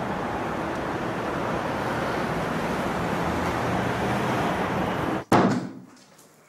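Steady road-traffic noise of cars passing, broken off suddenly after about five seconds by a short, loud sound that quickly dies away.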